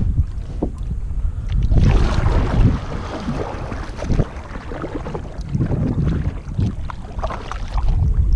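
Wind buffeting the camera microphone with a steady low rumble, and water sloshing and splashing around a paddled sit-on-top kayak, loudest from about two to four seconds in.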